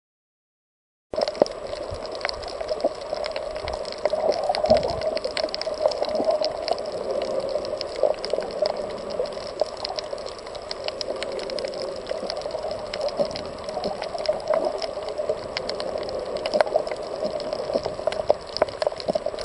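Underwater reef ambience picked up by a camera in its housing: a steady muffled rushing with many scattered sharp clicks and crackles, starting about a second in.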